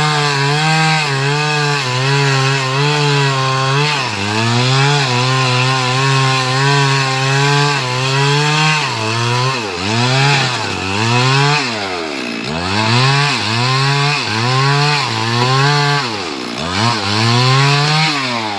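Stihl MS 382 two-stroke chainsaw cutting into a teak tree at high revs. Its pitch holds steady at first, then from about halfway it repeatedly sags and recovers, about once a second, as the chain loads up in the wood.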